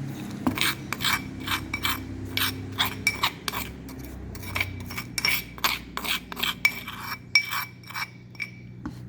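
A utensil scraping repeatedly against a dish, about two to three quick strokes a second, as a minced garlic and salt mixture is scraped into a container.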